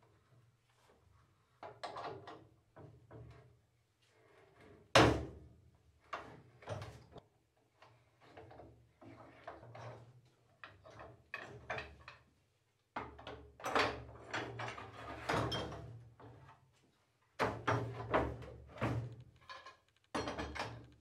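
Metal clamps being loosened and lifted off wooden cauls on a glued-up ash panel: a string of irregular metal-and-wood clunks and clatters, the loudest about five seconds in.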